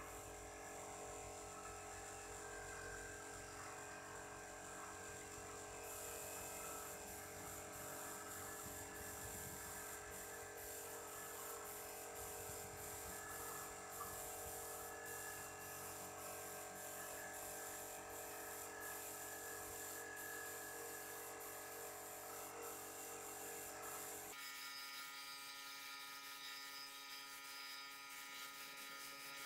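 Small electric air compressor running with a steady hum while a paint spray gun hisses air. About 24 seconds in, the rumble and hiss drop away and only the compressor's steady hum is left.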